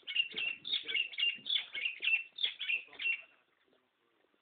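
A bird calling in a rapid series of short, high notes that fall slightly in pitch, about three a second, stopping a little over three seconds in.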